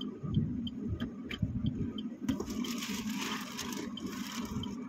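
Car interior with a steady low engine rumble at idle and a faint quick ticking about three times a second. From about two seconds in comes a rustling and shuffling of someone settling into a plastic-covered seat.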